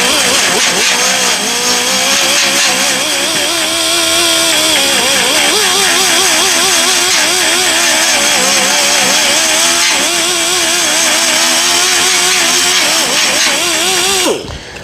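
8-inch orbital sander with 40-grit paper grinding down short-strand fibreglass body filler: a loud whine that wavers up and down in pitch over a rough sanding hiss, winding down and stopping just before the end.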